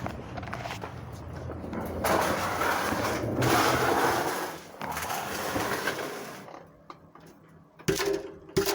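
VW Golf engine revved, with a strange noise from the exhaust that swells about two seconds in and dies away after about six seconds. The noise comes from a failed muffler that needs replacing.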